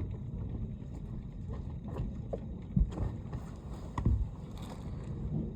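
Steady low rumble of wind on the microphone after a thunderstorm, with two dull thumps about three and four seconds in.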